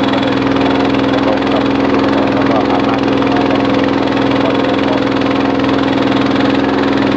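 Small boat's engine running steadily at an even pitch as the boat moves through flood water.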